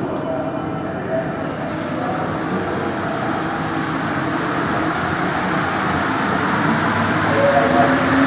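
Santiago Metro NS16 metro train pulling away from a station, heard from inside the driver's cab. Its running noise builds steadily as it picks up speed, with a rising whine coming in near the end.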